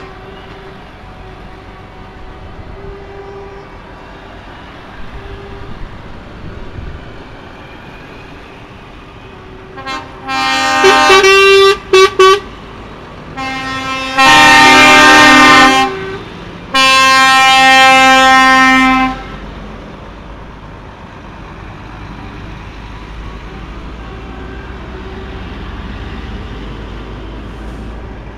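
Heavy trucks passing slowly with their diesel engines running. About ten seconds in, truck air horns sound very loudly: a few shorter blasts, then two long blasts of about two seconds each.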